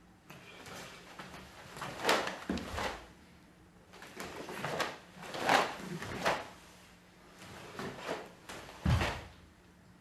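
Karate gi cloth swishing and snapping with each strike and turn, mixed with bare feet sliding and stepping on a wooden floor, in several short bursts. A heavier stamp lands near the end.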